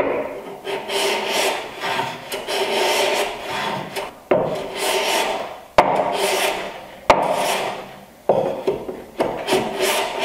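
A large hand plane taking repeated strokes across the end grain of a board held in a miter jack: about six scraping, hissing cuts of a second or two each, several of them opening with a sharp knock as the plane meets the wood. The plane is trimming a rough band-sawn end to square.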